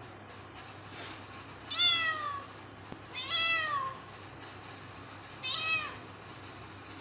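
A cat meowing three times. Each meow is a clear call about half a second long that drops in pitch at the end, and the middle one is the longest.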